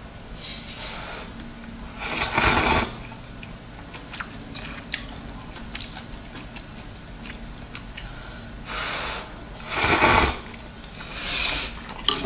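A person slurping hot and sour glass noodles (suan la fen) from a bowl, with several slurps, the loudest about two seconds in and about ten seconds in, and soft wet chewing clicks between them.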